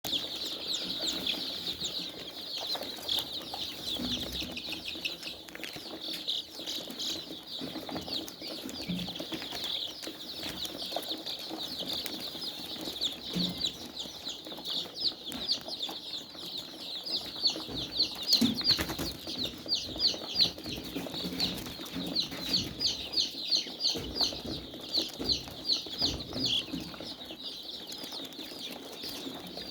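A flock of poultry-farm chickens calling together: a dense, continuous chorus of short, high peeps, with scattered lower clucks and rustling.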